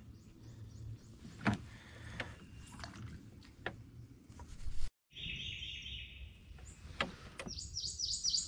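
Birds calling in a quiet swamp, with scattered sharp clicks and knocks from fishing tackle being handled in a small boat. A bird's rapid repeated call comes in about halfway through, and fast high chirping starts near the end.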